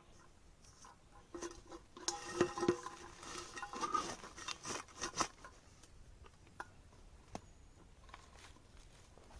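A metal kettle clinking and clanking as it is handled: a cluster of knocks with short metallic rings, the loudest about two and a half seconds in, then a few scattered faint ticks.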